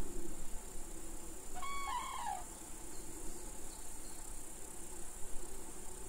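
A common crane gives one short two-note call about a second and a half in, over a steady high-pitched chirring of insects.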